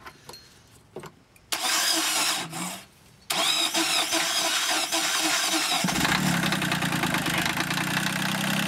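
Sailboat's inboard marine diesel engine being started: a few faint switch clicks, then the starter cranks for about a second and a half, stops briefly, and cranks again until the engine catches about six seconds in and settles into a steady idle.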